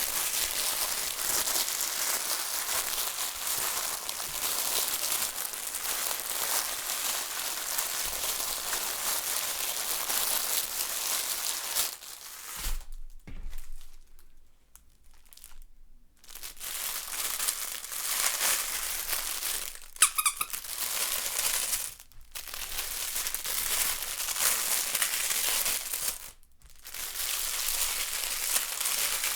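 Crinkle baby toy being squeezed and scrunched, a continuous crackly crinkling with a pause about halfway through and a couple of brief gaps later. A short squeak comes about two-thirds of the way through.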